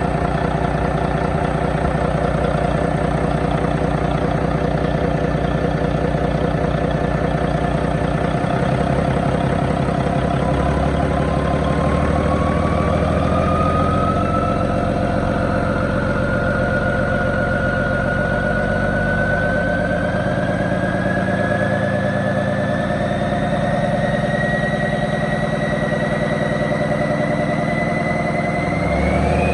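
Volvo D12 12.1-litre inline-six diesel truck engine running on a test stand. From about ten seconds in, a whine rises slowly and steadily in pitch, and the engine swells slightly in level near the end.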